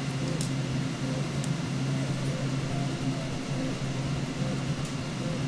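A steady low mechanical hum with a few faint light clicks.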